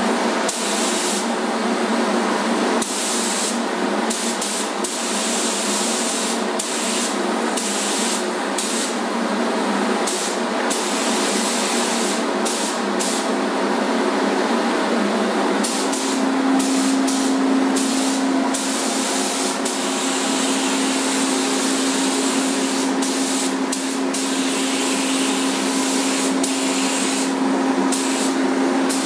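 Compressed-air paint spray gun (gravity-feed) hissing, cut by many short breaks as the trigger is let off between passes, over a steady droning hum.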